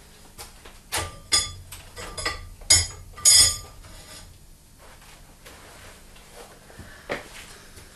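Steel gear ring clinking and ringing against metal as it is lifted off its hanging bar and set down over the outboard motor's flywheel. About five sharp, ringing metal knocks come between one and three and a half seconds in, and a single lighter knock comes near the end.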